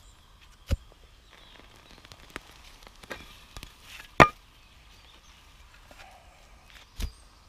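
Steel spade being driven into soil while digging, with a few sharp strikes of the blade; the loudest comes about four seconds in and another near the end.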